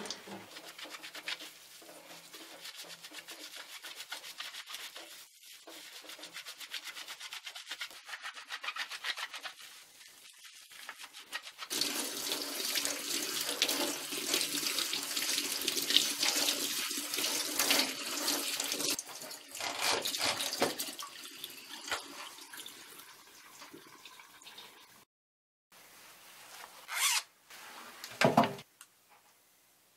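Water running from a tap into a stainless-steel sink while a wet suede sneaker is rinsed and scrubbed with a brush, loudest for about seven seconds from twelve seconds in. After a short break near the end, two brief bumps.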